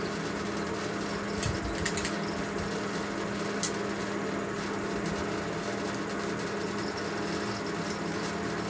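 Steady mechanical hum of a background machine, with a few light metallic clicks from a screwdriver working at the joint of the pump's motor and housing.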